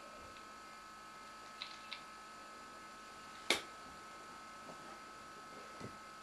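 Quiet room with a steady electrical hum. Two faint clicks come about one and a half to two seconds in, then one sharp click about three and a half seconds in, the loudest sound here.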